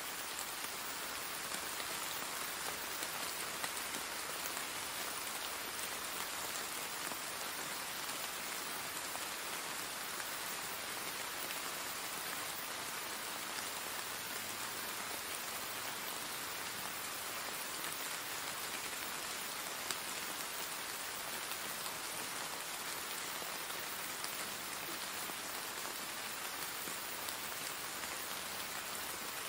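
Steady rain-like hiss with faint scattered patter, unchanging throughout: the masking background of a subliminal affirmations track.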